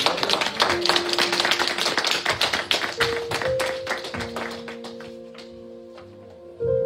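A small congregation clapping, dying away about three seconds in, while a keyboard comes in with long, steady held notes that build into a chord.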